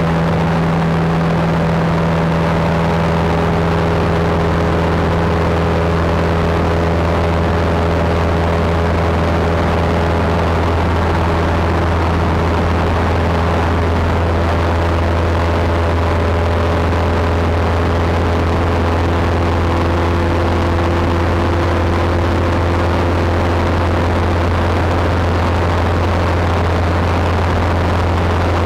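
Single-engine Cessna's piston engine and propeller running steadily at cruise power, heard from inside the cockpit as a loud, even drone whose pitch holds constant.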